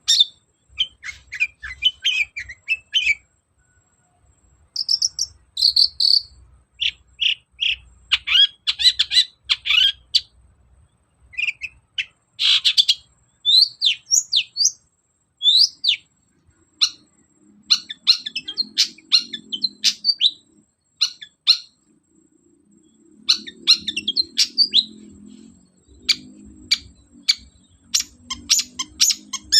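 Long-tailed shrike (cendet) singing in full voice: quick clusters of sharp, high chattering and whistled notes with brief pauses between phrases, in its varied song of mimicked phrases from other birds.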